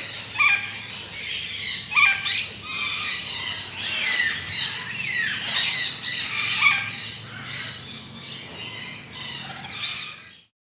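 Birds calling and chirping in quick, overlapping calls, some sliding down in pitch. The sound cuts off suddenly near the end.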